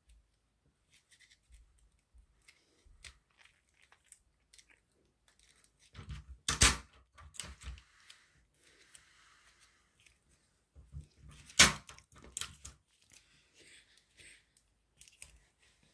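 Paper and sticky tape being handled as a red paper band is taped into a ring: quiet rustles and small crackles of paper and tape, with two sharp louder clicks, one a little before the middle and one about three quarters through.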